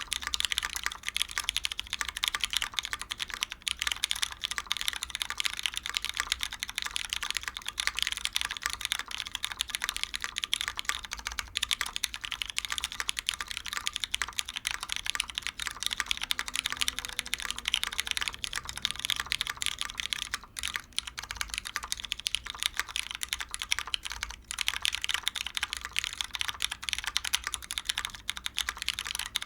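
Continuous fast typing on a custom mechanical keyboard with lubed Cherry MX Brown tactile switches and GMK keycaps, in a gasket-mounted Monokei Kei R2 with a brass bottom and polycarbonate plate. A dense stream of key clicks, with two short pauses in the second half.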